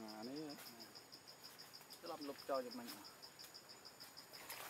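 Insects chirping in a steady high pulse, about seven pulses a second, with a voice heard briefly twice: near the start and again about two seconds in.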